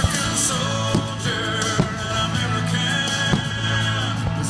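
Country-rock song playing, with guitar, drums and a sung vocal; several sharp hits stand out.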